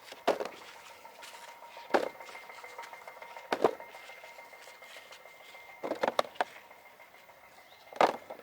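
Potatoes and soil being handled by hand: short knocks and scuffs every second or two as tubers are pulled out and set down together.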